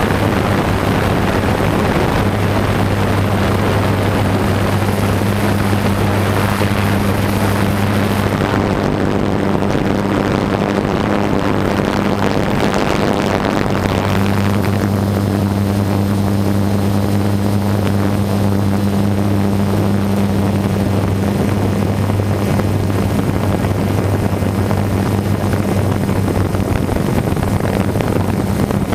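DJI 550 multirotor drone's brushless motors and propellers droning steadily, a constant low hum over rushing air noise on the onboard camera's microphone.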